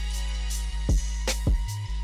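Background music: a hip hop beat with a heavy bass drum and sustained bass notes.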